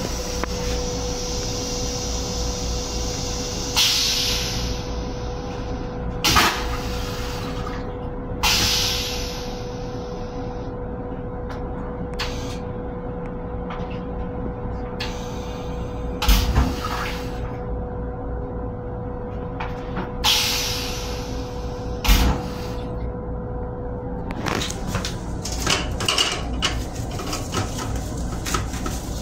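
Running noise inside an M7 electric railcar, a steady hum with a faint constant tone. It is broken by about half a dozen sudden knocks, several trailing off in a hiss, and a run of rapid clicks and rattles near the end.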